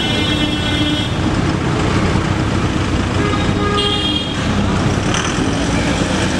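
Road traffic running steadily, with car horns honking: one held toot at the start lasting about a second and another short toot about four seconds in.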